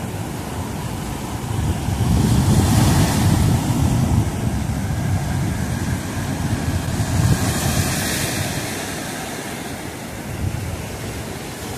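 Black Sea surf on a sandy beach: waves breaking and washing up the shore. The wash swells about two seconds in and again around seven seconds, with wind rumbling on the microphone.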